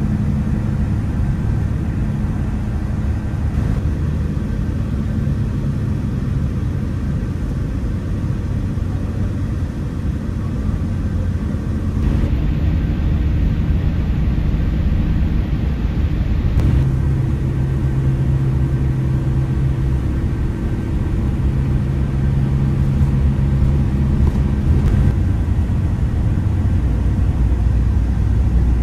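Coach bus engine and road noise, a steady low drone. The engine note shifts twice, about twelve and seventeen seconds in.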